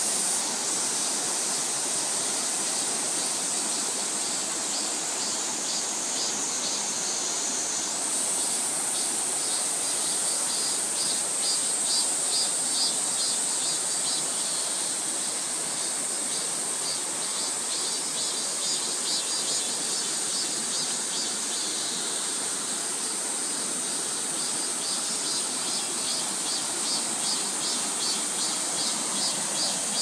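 Mountain stream rushing over boulders in a steady wash of water, with a high insect chorus pulsing above it for most of the time.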